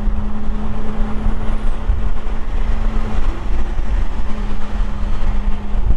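Semi truck on the road: a steady low engine and road rumble with a constant hum.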